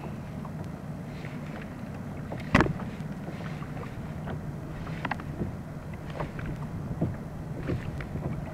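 Small waves lapping and slapping against a plastic sit-on-top kayak hull, with scattered light ticks and knocks over a steady low hum. One sharp, loud knock comes about two and a half seconds in.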